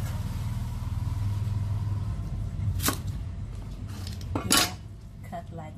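Kitchen knife knocking against a wooden chopping board while cutting celery-like vegetable stalks: two sharp knocks about a second and a half apart, the second louder. A low steady hum runs underneath and fades about four seconds in.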